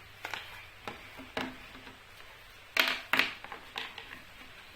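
Hard plastic parts of a Barbie pool playset clicking and knocking together as they are handled and pushed into place. The sharp taps come irregularly, with the loudest cluster about three seconds in.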